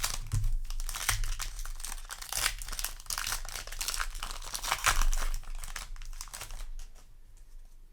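Foil Yu-Gi-Oh! booster pack wrapper crinkling and rustling as it is torn open and the cards pulled out; the crackling stops about seven seconds in.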